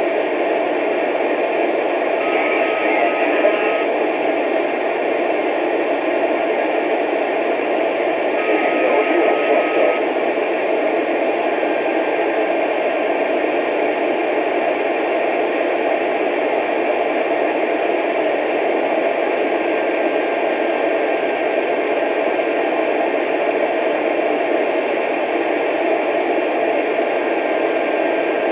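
Radio receiver hiss and static on an open channel, steady and cut off above and below like sound through a radio speaker. A short steady whistle sounds twice in the first ten seconds, and a fainter steady whistle comes in about eleven seconds in and holds.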